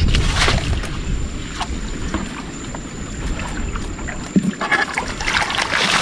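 Water splashing and churning as a long-handled scoop net is swept through the water inside a bamboo fish trap full of fish, over a steady low rumble. A few separate splashes at first, then denser splashing from about two-thirds of the way in.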